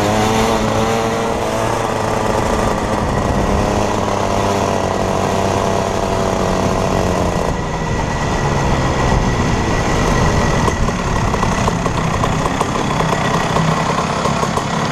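Rotax Max 125cc two-stroke kart engine heard from on board, running at a steady pitch with wind noise. About halfway through the sound changes suddenly to a rougher, less even running note.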